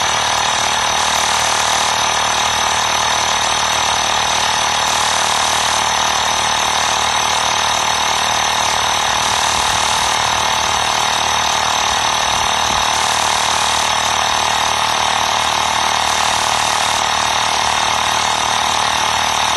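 12-volt DC portable air compressor (tyre inflator) running steadily with a fast, even rattle, pumping air into a car tyre through its hose.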